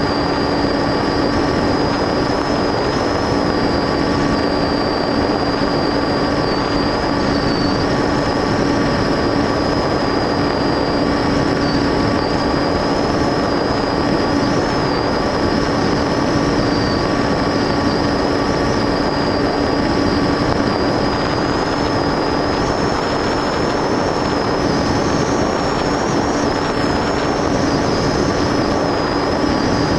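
FPV model aircraft's motor and propeller running steadily, heard from the onboard camera as a continuous rushing drone with a high whine that wavers and lifts slightly in the last few seconds.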